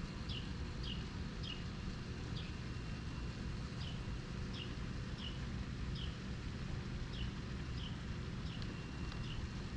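A bird calling over and over in short, high, downward-slurred chirps, often in pairs, about every half second to a second, over a steady low rumble.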